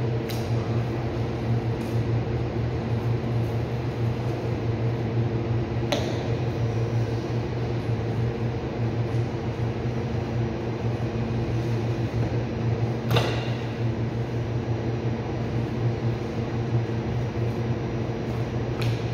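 Steady hum of a ceiling-mounted cooling unit's fan, with a few brief sharp clicks spaced several seconds apart.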